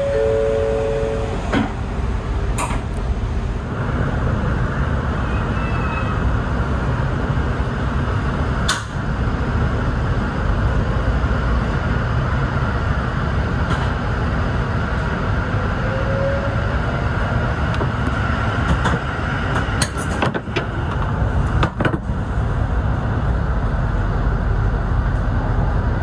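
Inside an N700S Shinkansen car as the train pulls away and accelerates: a steady low running rumble, with faint rising electric motor whines and a few sharp clicks and knocks. A two-tone chime finishes about a second in.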